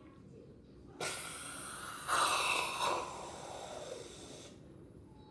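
Aerosol can of whipped cream spraying: a hiss that starts suddenly about a second in and lasts about three seconds. It is loudest in the middle and falls in pitch toward its end.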